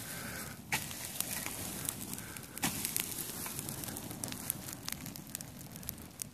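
Small pile of dry weeds burning and crackling, with many sharp pops and a few louder snaps about a second in and near the middle.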